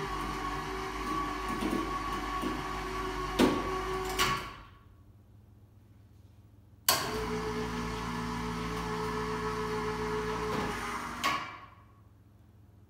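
Harbor Freight Pittsburgh 440 lb electric hoist motor running under the load of a 182 lb roof top tent, in two runs of about four to five seconds each: the first lifts the tent, the second lowers it. Each run starts suddenly with a steady hum and winds down when it stops, with a couple of sharp clunks just before the first run ends.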